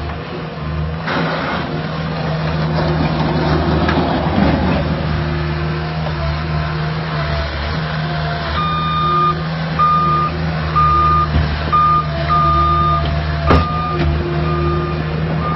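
Caterpillar 246 skid-steer loader's diesel engine running steadily under load, with a rushing noise in the first few seconds. Just past halfway its reversing alarm starts beeping about once a second as it backs up, and there is one sharp clunk near the end.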